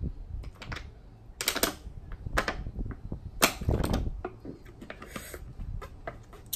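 Close-up eating sounds of sauce-covered shrimp: a string of sharp wet mouth smacks and clicks at irregular intervals, busiest about three and a half seconds in.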